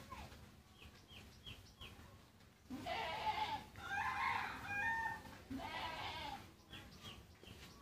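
Farm animal calls: several drawn-out cries between about three and six and a half seconds in, with a few faint short chirps before them.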